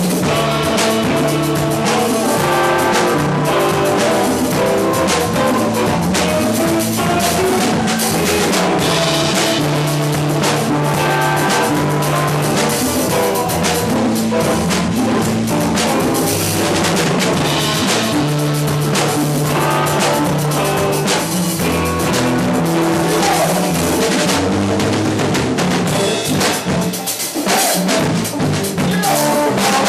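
A live band playing loudly without a break: electric guitar, bass guitar, congas and a drum kit.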